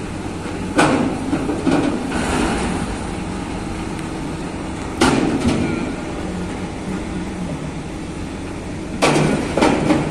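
Steady engine or machinery hum with loud metallic bangs in pairs, about a second apart, coming three times at roughly four-second intervals.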